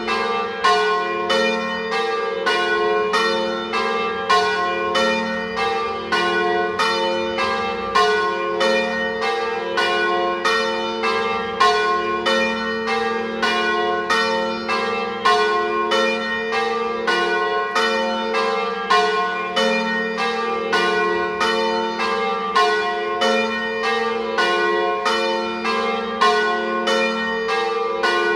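Church bells swung in the Treviso style, ringing together in a full peal: several bells of different pitch strike in a continuous, overlapping stream. The bells are Cavadini bells of Verona from 1926, with a third bell by De Poli from 2022.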